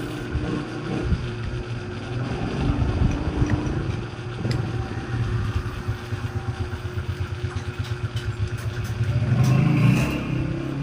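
A motor vehicle engine, most like a motorcycle, running steadily with a low hum, pulsing for a stretch in the middle and swelling louder near the end.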